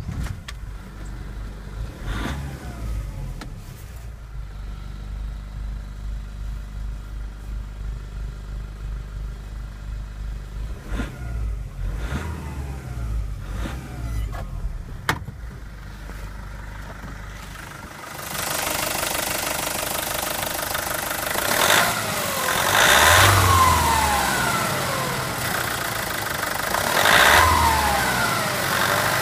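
Nissan YD25 2.5-litre intercooled turbo diesel catching right at the start and settling into a steady, pulsing idle, heard from inside the cab. From about 18 s it is heard close up in the engine bay, louder, and is revved briefly about four times, the pitch rising and falling with each blip.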